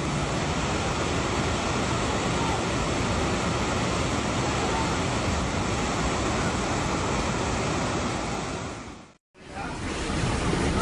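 A steady, even rushing noise that cuts off sharply about nine seconds in; after a short gap a similar rushing noise starts again.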